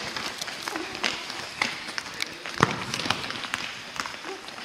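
Players running and kicking a football on a sports-hall floor: a busy patter of quick footsteps and taps, with one sharp ball kick, the loudest knock, about two and a half seconds in.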